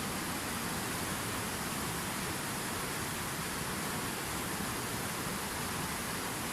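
Fountain water falling and splashing steadily: an even, unbroken rushing hiss.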